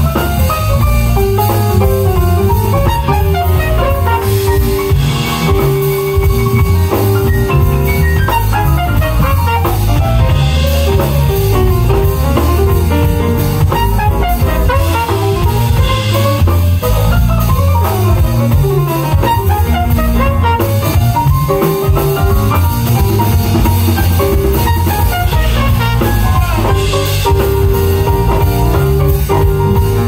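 Jazz band playing live: drum kit and bass under a keyboard playing quick runs of notes, with a repeated held note.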